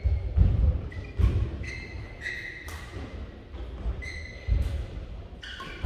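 A badminton rally in a large hall: the shuttlecock is struck by rackets as sharp knocks, with players' court shoes squeaking in short high squeals and thudding on the court floor.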